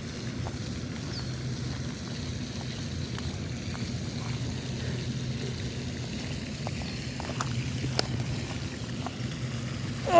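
Fishing reel being cranked to bring in a hooked bluegill: a steady low whir with a few faint clicks.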